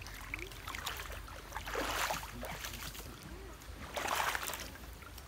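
Footsteps wading through a shallow rocky stream: two splashing steps about two seconds apart.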